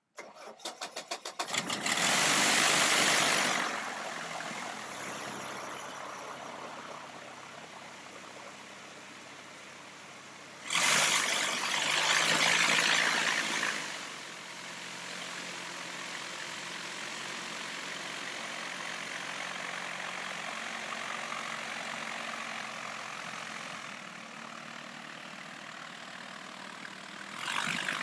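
UL Power UL350iS fuel-injected flat-four aircraft engine and propeller starting: the starter cranks it in quick even pulses for about a second and a half, it catches with a short loud burst, then settles to a steady idle. About eleven seconds in it runs louder for some three seconds before idling again, and it picks up once more near the end.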